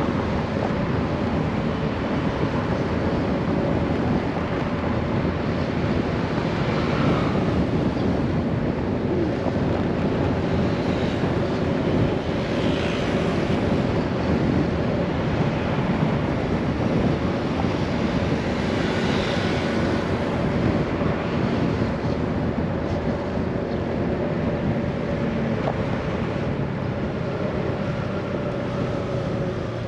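Scooter engine running steadily while riding, under a constant rush of wind and road noise.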